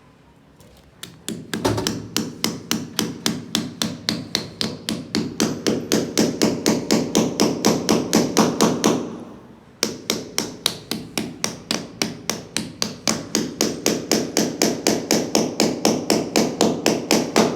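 Steady hand hammering, about four blows a second, with a short pause a little past halfway before the blows resume.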